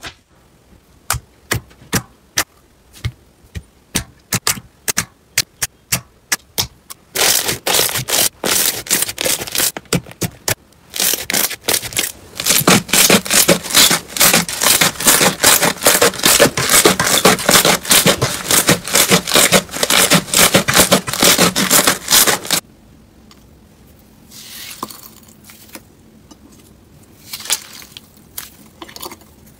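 Hands pressing and squeezing slime, including clear crunchy slime packed with blue chunks. Sharp crackles and pops come one by one at first, then build into a dense, loud run of crackling that lasts about fifteen seconds. Near the end the sound drops to soft, quieter squishing.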